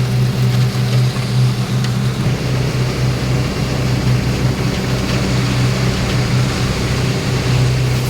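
Diesel engine of a Wirtgen SP 15 slipform paver running steadily, a constant low drone with no change in pitch.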